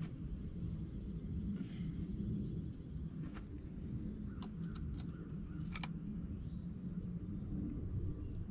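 A high-pitched insect trill buzzes steadily for about three seconds, then stops. A few sharp metallic clicks and clinks follow from metal parts being handled, over a low steady rumble.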